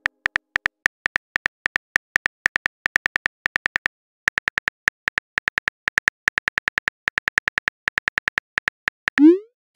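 Phone keyboard typing clicks, quick and slightly uneven, with a brief pause about four seconds in. Near the end, a short rising whoosh marks the message being sent.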